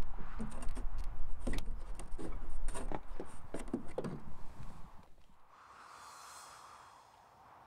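A hand rummaging in a side pocket inside a small plane's cabin: rustling, scraping and a quick run of knocks over a low rumble. About five seconds in it drops to a quiet, steady hiss.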